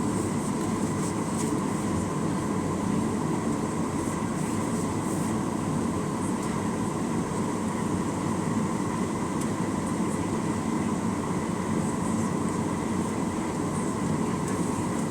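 Steady cabin drone of a Boeing 737-900ER in motion: its two CFM56-7B turbofans and the airflow heard from a rear seat, a constant rumble and hiss with a faint steady whine above it.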